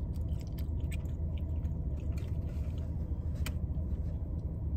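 Someone chewing a mouthful of pasta with faint, scattered mouth clicks, over the steady low rumble inside a parked car. A single sharper click comes about three and a half seconds in.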